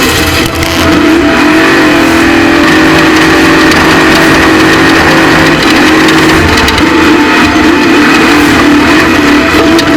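Off-road race truck engine running hard at high revs, its pitch holding steady with a couple of brief dips.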